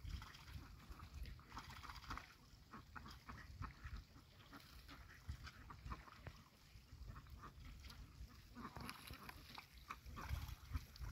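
A flock of domestic ducks, faint: scattered short duck calls and clicks over a low rumble.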